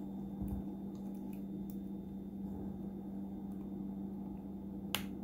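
Faint small ticks and scrapes of a tool pressing an antenna cable connector onto a laptop Wi-Fi card, then a sharp click near the end as the connector snaps into place. A steady low hum runs underneath.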